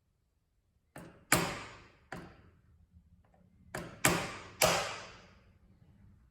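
Hammer driving a punch into a steel spin-on oil filter canister: six sharp metal strikes, irregularly spaced, each ringing briefly before it dies away. The strikes puncture the old filter so its oil can drain.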